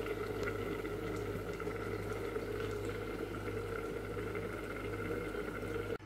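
Covered pot of bitter gourd curry simmering on a gas stove, a steady hiss and hum with no change.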